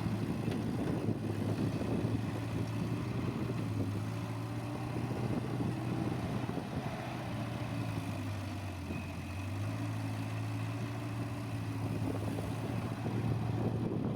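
Diesel engine of heavy construction machinery running steadily, its note dipping briefly about eight seconds in and then coming back up.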